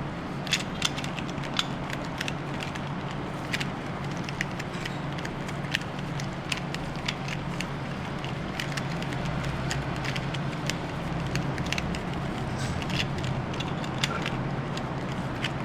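Pyraminx being scrambled by hand: irregular sharp plastic clicks as its faces and tips are twisted, over a steady low hum.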